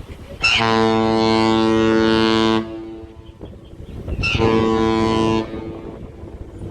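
Cruise ship's horn sounding two blasts: a long one of about two seconds, then after a pause a shorter one of about a second, each a deep, steady note that starts and stops abruptly.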